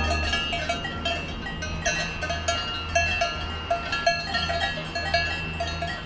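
Several cowbells clanking irregularly, as when cattle graze, over a low steady rumble.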